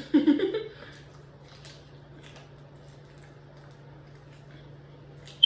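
A short voiced sound from the woman, then faint chewing and mouth sounds from eating, with scattered small clicks over a steady low electrical hum. A single sharp click comes near the end.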